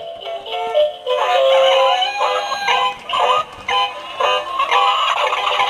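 Dan-dee animated singing Santa chicken toy playing its tinny electronic song through its small speaker, a melody of short pitched notes with a synthetic voice.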